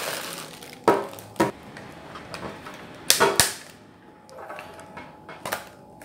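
Clear plastic bag crinkling and crackling as a hair dryer is slid out of it, with a handful of sharp crackles about a second in, around three seconds in and near the end.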